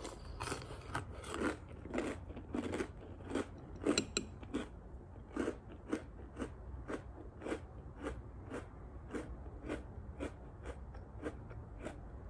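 A person chewing a mouthful of Kellogg's Eggo chocolate waffle cereal in milk, the pieces still crunchy after soaking: a steady run of crunches, about two or three a second, louder in the first half and then tapering off.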